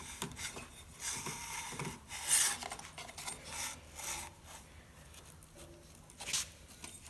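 Scattered metallic rubbing and clicking from hand work on a small engine, with a louder scrape about two seconds in and another near the end: the flywheel being turned over by hand while the ignition coil is held back on a business card used as a gap gauge, setting the coil's air gap.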